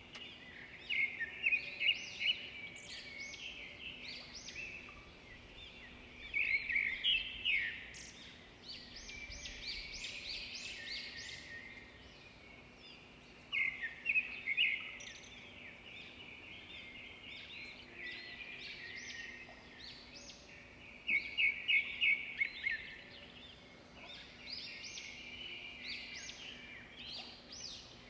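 Songbirds chirping and singing in bursts of rapid, high, twittering notes, with quieter scattered chirps in between over a faint steady hum.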